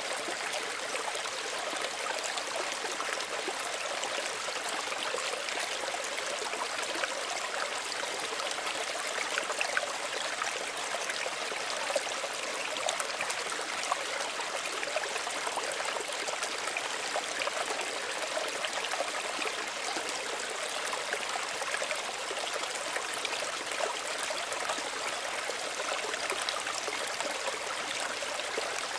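Small stream running steadily over stones, a continuous babble of trickling water with fine splashes and gurgles.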